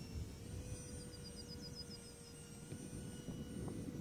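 Distant whine of the 30mm electric ducted fan on a tiny foam RC BAe Hawk jet in flight, a thin steady tone that shifts slightly in pitch. Wind rumbles on the microphone underneath.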